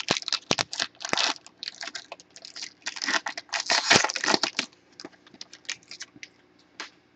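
Packaging rustling and tearing with quick clicks and scratches as a trading-card pack is opened. It thins to a few light taps after about four and a half seconds.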